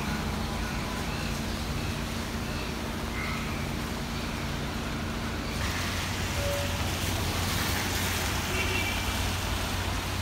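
Steady city street traffic on a wet road: car engines running and passing vehicles. A little over halfway through, the sound changes and gets slightly louder, with a steady low engine hum.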